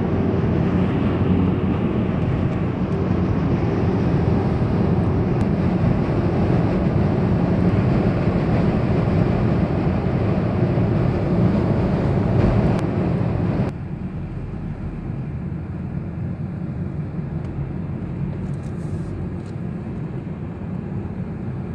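Steady road and tyre noise with engine hum of a car at motorway speed, heard from inside the cabin. About two-thirds of the way through the noise drops abruptly to a quieter level.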